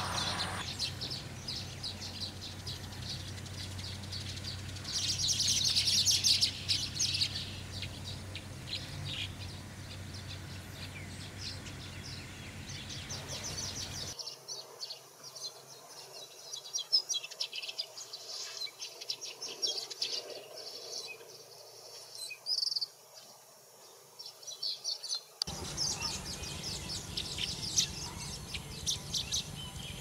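Asian golden weavers chattering and chirping: fast, high, buzzy notes that run on and off, with a louder burst about five to seven seconds in.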